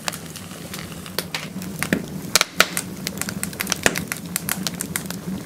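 Fire crackling: irregular sharp pops and snaps over a steady low hum.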